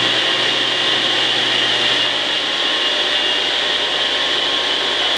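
Grizzly 1023RLW cabinet table saw running steadily at full speed with no cut being made, its motor and spinning blade giving an even hum under a high whine. It is the saw's first run after assembly.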